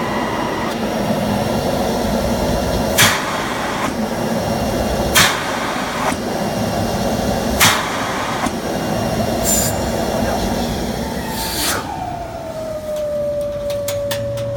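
Industrial vacuum cleaner running with a steady rush, broken about every two seconds by short, sharp bursts of its reverse-air filter cleaning. Near the end the motor shuts off and winds down with a falling whine.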